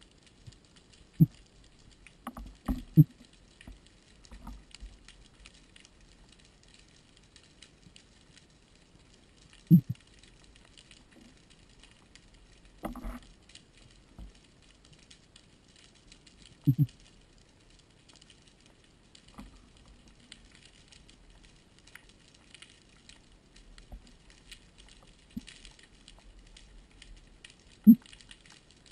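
Underwater sound of a rocky reef heard through a camera housing: a faint, steady fine crackle, broken by a handful of dull low thumps a few seconds apart.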